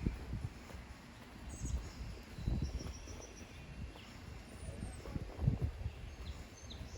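Outdoor ambience: irregular low thumps and rumble, with a few faint, short high bird chirps scattered through it.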